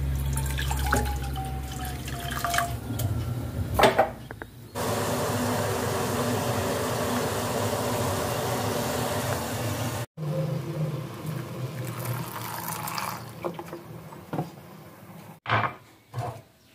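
Water poured from a steel bottle into a stainless steel saucepan. After a cut, about five seconds of steady hiss from the pan of tea heating over the gas burner, then a few clinks and knocks near the end.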